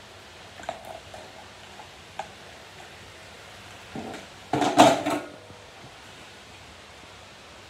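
A few faint taps and knocks, then a loud, brief clatter about four and a half seconds in as a kitchen cupboard door is opened.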